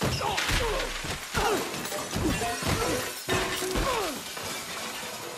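Film sound effects of a kitchen being wrecked: a run of crashes and shattering as guards and debris hit walls and floor. Several ringing tones fall in pitch among the impacts, and the crashing thins out near the end.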